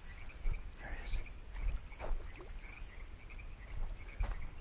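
Crickets chirping in a steady night chorus, with repeated short chirps. Under it there is a low rumble and a few soft knocks from movement and handling.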